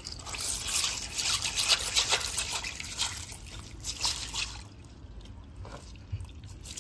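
Asian small-clawed otter rummaging with its paws and snout in wet gravel: a busy run of small pebble clicks and wet splashing and trickling, busiest for the first four seconds or so, then quieter.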